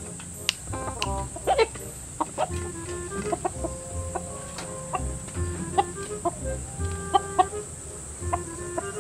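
Chickens clucking in short, sharp calls over background music with a steady beat.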